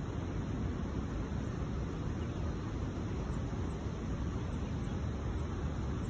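Steady low rumble of distant road traffic, with a few faint high ticks around the middle.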